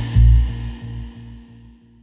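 Music with a deep pulsing bass beat, about two pulses a second, under a held tone, fading out to near silence.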